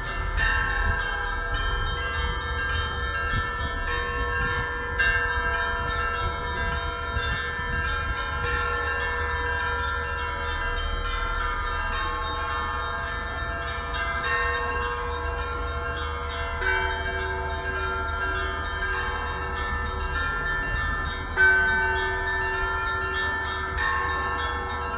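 Orthodox church bells ringing a continuous peal, many bells of different pitches struck one after another, with a low rumble underneath and one louder strike near the end.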